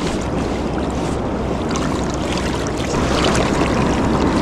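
Fast-flowing river water running steadily past a wading angler, getting a little louder about three seconds in.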